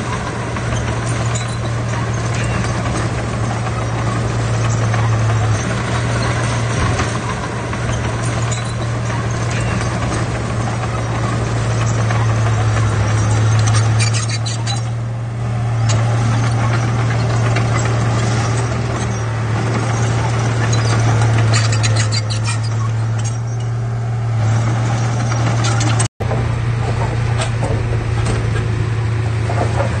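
Heavy diesel engine of a Komatsu D31P bulldozer running steadily while pushing fill, a constant low drone with a rough rumble over it. The sound cuts out for an instant about 26 seconds in.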